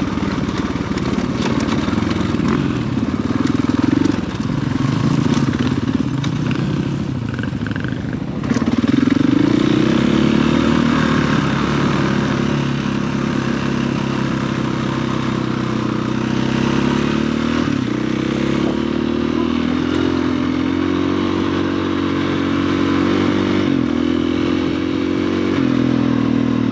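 Dirt bike engine running under way, its pitch rising and falling as the throttle opens and closes, getting louder about eight seconds in.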